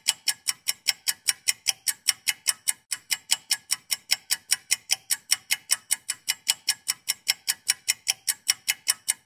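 Ticking-clock sound effect: rapid, even ticks, about five a second, cutting off abruptly near the end.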